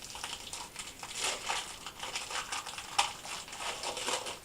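Crinkling of a small plastic snack wrapper being handled and opened, an irregular run of crackles with one sharper crackle about three seconds in.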